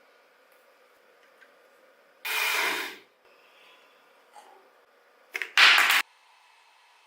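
Two short bursts of hissing: the first about two seconds in, fading out after under a second; the second louder, near six seconds, with two quick spurts just before it.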